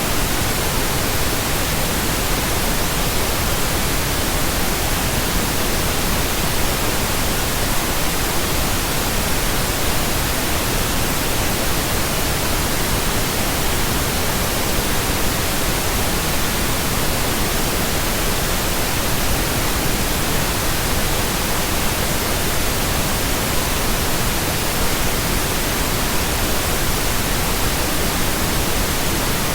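Steady synthetic pink noise: an even, unbroken hiss spread across the whole range, with no tones or changes.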